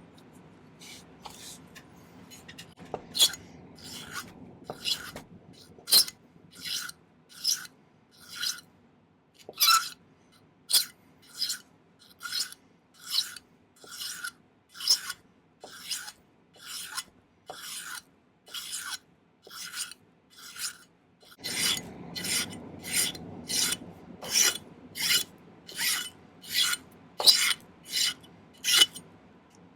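Hand file rasping across sterling silver half-round wire in steady back-and-forth strokes, a little more than one a second, quickening over the last third.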